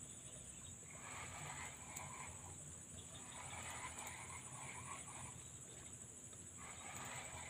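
Faint lakeside animal chorus: frogs calling in bouts of about a second, every couple of seconds, over a steady high insect buzz.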